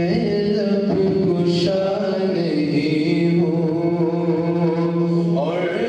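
A man's solo voice chanting a naat, an Urdu devotional poem in praise of the Prophet, into a handheld microphone. He holds long notes that slide from one pitch to the next, with a rise in pitch near the end.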